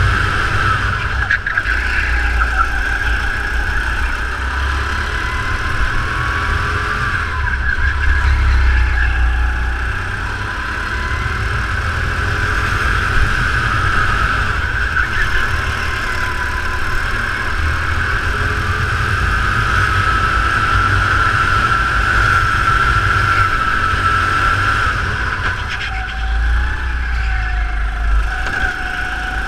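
Racing kart's engine heard from on board, running continuously through a lap, its pitch drifting up and down with the throttle and easing briefly about ten seconds in and again near the end.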